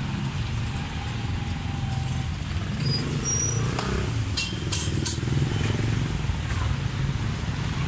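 Steady low rumble of motor vehicle engines running, with a few sharp clicks about four to five seconds in.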